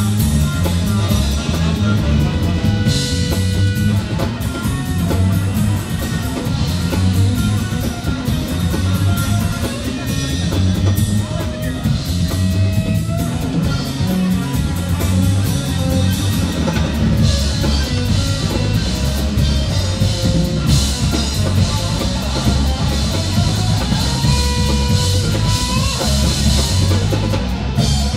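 Live funk-rock band playing an instrumental passage: electric guitar over electric bass and a steady drum-kit groove.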